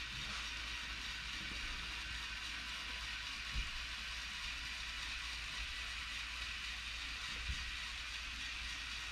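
Lego Technic Liebherr 9800 excavator's Control+ motors and gear trains whirring steadily as its plastic tracks carry it slowly across a wooden floor, with a soft knock twice.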